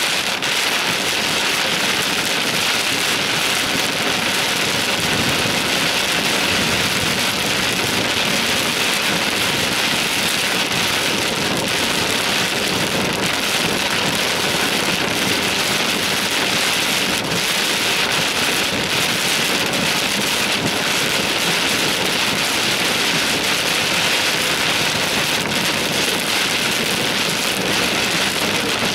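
Heavy rain pounding on a car's roof and windshield, heard from inside the cabin as a steady, loud hiss.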